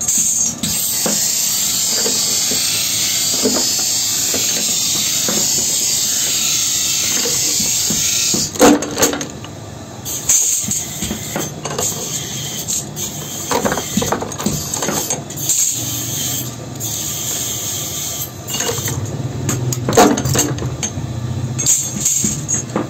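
Hand-lever bench shear cutting strips of old band saw blade: sharp metal clacks at irregular intervals, with cut pieces clinking. A steady hiss fills roughly the first third, then stops.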